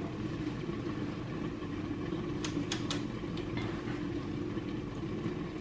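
A steady low mechanical hum, like a fan or appliance motor, with a few faint ticks a little past halfway.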